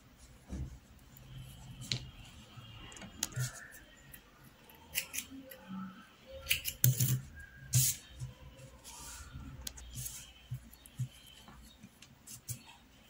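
Close-up handling sounds of crochet work: wool yarn and fabric rubbing, with small clicks from the metal crochet hook as the leftover yarn ends are worked into the piece, and a cluster of sharper clicks about halfway in.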